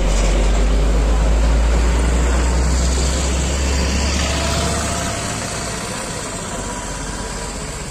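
Road traffic passing close: a heavy container lorry's deep engine rumble and tyre noise as it drives by, then a car and an auto-rickshaw following. The low rumble eases off after about five seconds.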